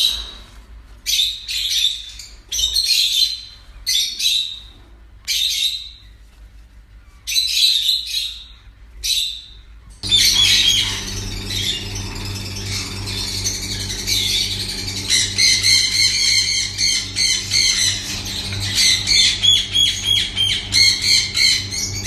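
Ring-necked parakeets in a nest box squawking: harsh calls in short bursts, about one a second, for the first ten seconds. Then the sound changes suddenly to a continuous run of rapid, rasping calls over a steady low hum.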